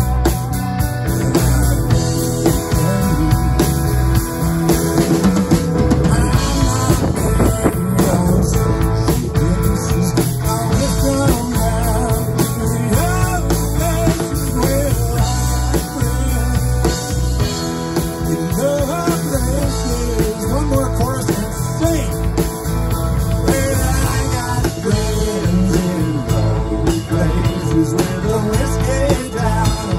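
Live rock band playing amplified electric guitars over a drum kit with a steady beat.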